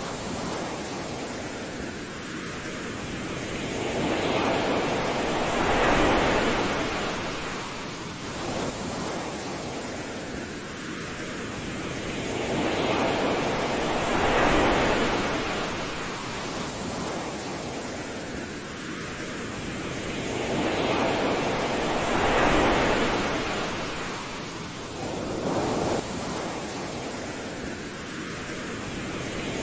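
Ocean surf washing up a sandy beach: a steady rush of water that swells and falls back about every eight seconds, three big swells in all.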